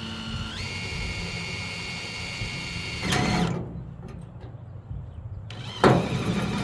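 A small power tool running with a steady whine that steps up in pitch about half a second in. It stops abruptly about three and a half seconds in, and starts again suddenly near the end.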